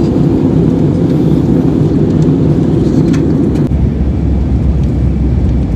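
Steady low rumble of an airliner's engines and airflow, heard inside the passenger cabin. About two-thirds of the way through, the deepest part of the rumble grows stronger and steadier.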